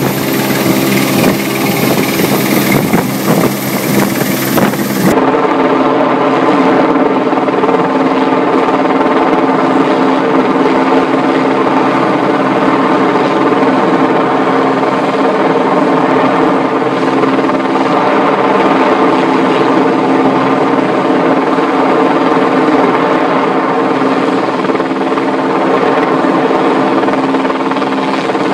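Helicopter hovering with an underslung load on a long line: a steady drone of several held tones at a constant pitch. For the first five seconds a harsher rushing noise lies over it, then the sound changes abruptly to the cleaner, steady rotor-and-engine drone.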